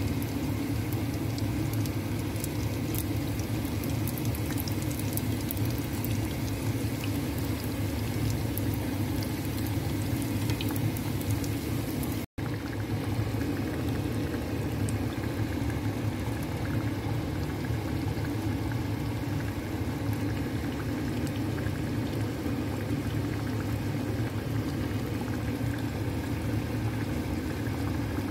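Spring rolls deep-frying in hot oil: a steady sizzle and bubbling, with sharp crackles through the first half. The sound cuts out for an instant about twelve seconds in.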